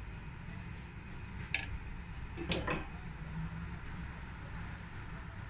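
Kitchen clatter over vegetables blanching in a metal wok of water: a steady low hum, with a sharp clink about one and a half seconds in and a quick run of clinks a second later.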